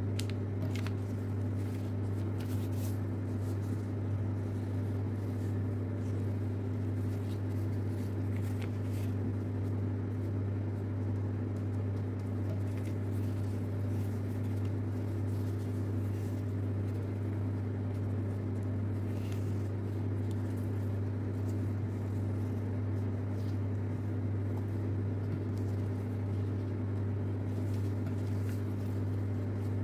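A steady low hum, the loudest sound, with faint, scattered crinkles and scrapes of paper being folded and creased by hand.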